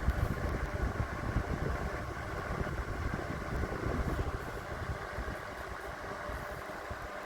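A generic 10-inch three-speed box fan running on medium speed: a steady rush of moving air, with a fluttering low buffeting, that eases off slightly in the second half.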